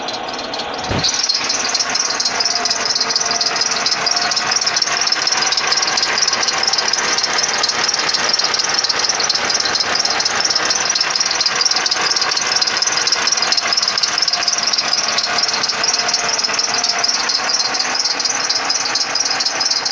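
Geely MK car engine running with its alternator drive belt squealing: a steady high-pitched whistle over the engine, louder from about a second in. It is the sign of a slipping belt.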